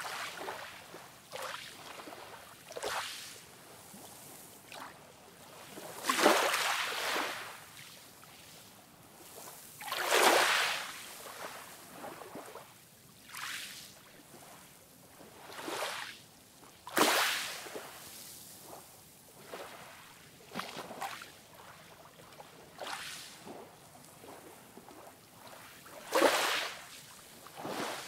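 Small ocean waves breaking and washing up a sandy shore: separate hissing rushes of surf every few seconds over a soft background wash, with four louder breaks spread through.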